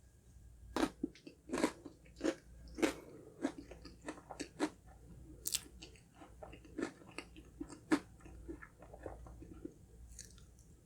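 Chewing of honeycomb crunch cake: crisp crunches from the honeycomb toffee pieces come several times a second and thin out over the last couple of seconds.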